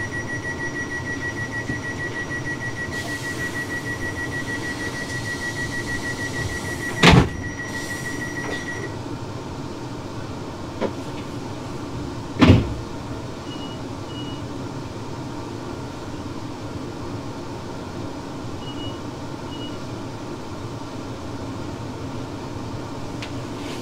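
Class 360 electric train's door-closing warning: a rapid high-pitched beeping for about nine seconds, with a loud thud about seven seconds in as the doors shut and another thud some five seconds later. Two faint double pips follow, over the steady hum of the carriage's equipment.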